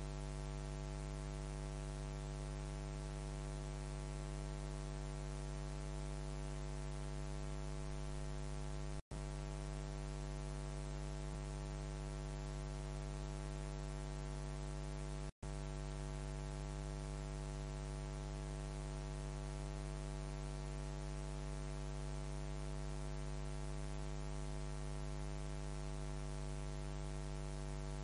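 Steady electrical mains hum with a layer of hiss, a buzz in the recording's audio chain. It cuts out for an instant twice, about nine and fifteen seconds in.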